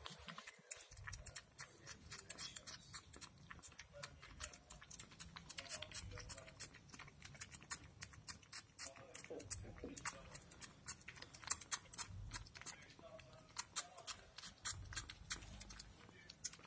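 Two kittens lapping milk from a bowl: quick, irregular wet clicks of their tongues, several a second.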